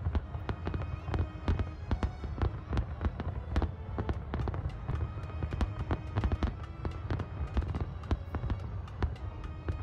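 Fireworks going off in sharp, irregular bangs, a few a second, over music with sustained tones and deep bass.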